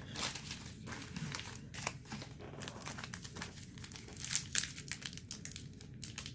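Crinkling and crackling of a trading-card pack wrapper being handled and pulled at, in many small irregular crackles.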